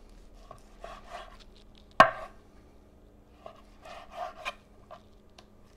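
Chef's knife slicing raw top sirloin into thin strips on a wooden cutting board: soft slicing and scraping strokes, with one sharp knock of the blade on the board about two seconds in.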